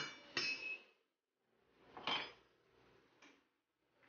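Kitchenware clinking and knocking: bowls and utensils being handled and set down. Two knocks come near the start, the second ringing briefly. A third comes about two seconds in, and fainter taps follow near the end.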